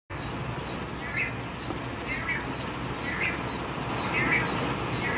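A bird giving short high chirps about once a second over a steady background hiss, with faint high ticks repeating about twice a second.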